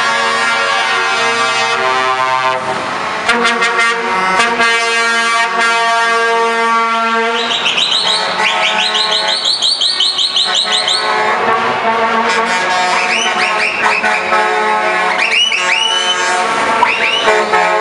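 Truck air horns sounding in long, steady chords as the lorries drive past one after another, with a run of quick repeated rising chirps about eight to eleven seconds in and again near the end.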